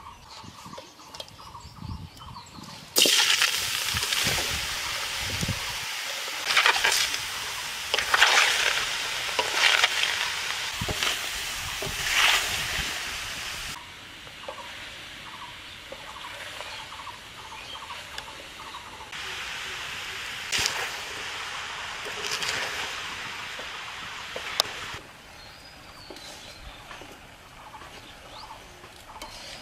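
Chopped strawberries hissing and being stirred with a metal ladle in a hot aluminium karahi over a wood fire, in two stretches of loud hiss with scraping strokes, the first about ten seconds long.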